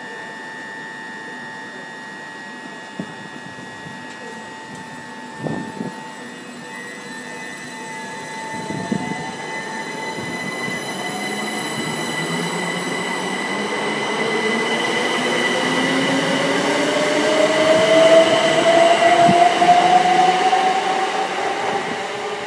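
c2c Class 357 Electrostar electric multiple unit on the move, its traction motors whining in a tone that rises steadily in pitch as it gathers speed, growing louder through the second half. A thin steady high tone sounds over the first few seconds.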